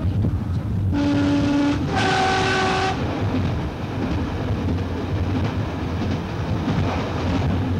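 A train's two-tone horn sounded from the cab: a lower note of under a second, then a higher note of about a second. It sounds as the train runs into a tunnel, with the steady rumble of the train running on the rails throughout.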